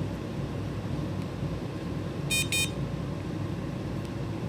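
Samsung Galaxy SmartTag 1 ringing: a quick pair of high, electronic beeps about two and a half seconds in, part of a repeating ring pattern, over a steady low hum.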